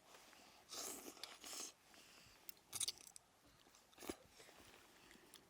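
Someone eating hot food up close: chewing, with two short breathy sounds in the first two seconds and a few sharp clicks later.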